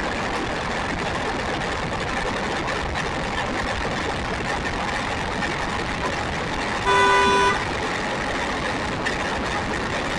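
Steady rushing road and wind noise picked up by a camera riding on an RC buggy as it drives over a paved road. About seven seconds in, a single horn toot lasts under a second and is louder than the road noise.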